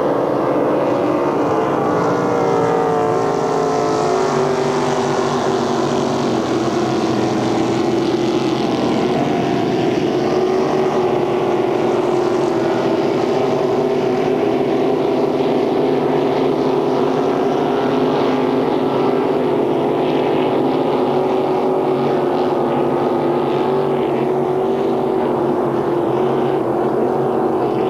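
Racing boat engines running at speed: a loud, steady engine drone whose pitch falls over the first few seconds, then holds.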